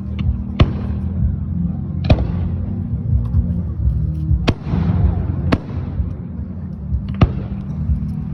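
Fireworks going off: about five sharp bangs a second or two apart, some followed by a brief crackle, over a steady low rumble.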